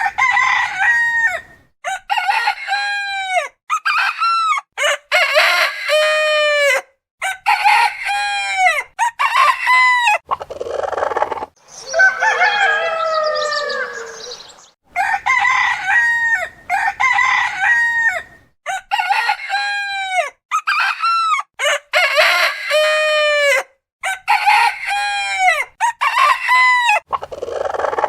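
Rooster crowing again and again, many short crows with abrupt cuts between them, and one longer, rougher crow about halfway through.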